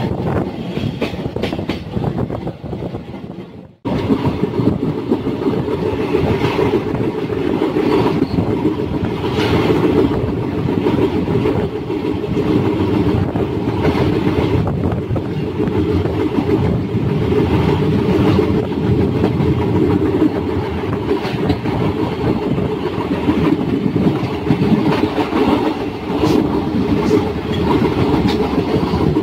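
Passenger train running at speed, heard from inside the coach by the open door: a steady rumble of wheels on rails with clicks over rail joints and wind. The sound fades and cuts out briefly about four seconds in, then resumes a little louder.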